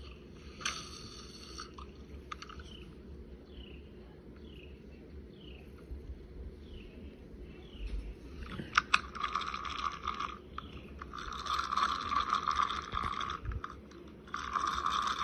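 Fishing reel being cranked in several bursts of a few seconds each, a grinding, ratchety whir, the bursts growing louder toward the end. It is heard played back through a device's speaker.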